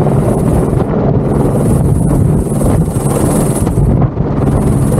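Airbus H125 helicopter hovering low and close: its rotor and single turboshaft engine running loud, with rotor-wash wind buffeting the microphone. A high turbine whine fades in and out over the steady rotor noise.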